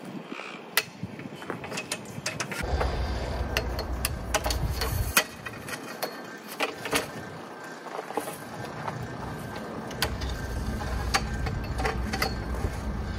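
Scattered clicks, clacks and knocks of a roll-out vehicle side awning being unfurled and its metal support poles being handled and set up. A low rumble comes and goes twice underneath.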